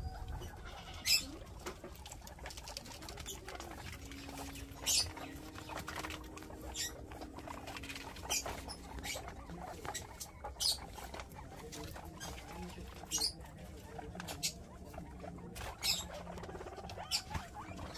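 Guinea pigs giving short, high squeaks every second or two, with light rustling and pattering as they move through the grass they are eating.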